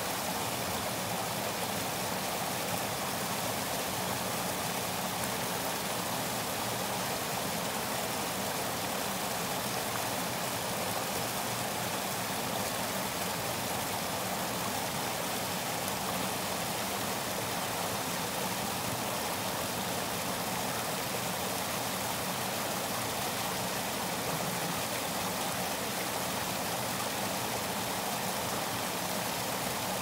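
Stream water spilling over a small concrete weir and churning in the pool below: a steady rush of falling water.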